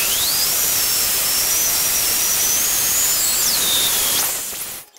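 Drill press boring a twist bit into a steel plate: a loud hissing cutting noise with a high squeal from the bit that rises, wavers, then drops and fades about four seconds in. The noise cuts off suddenly near the end.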